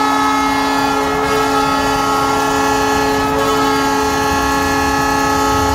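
Arena goal horn sounding one long, steady blast of several tones together, a train-style horn signalling a goal.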